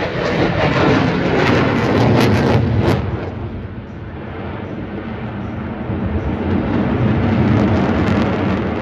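Loud aircraft engine rumble with crackle. It eases about three seconds in and builds again toward the end.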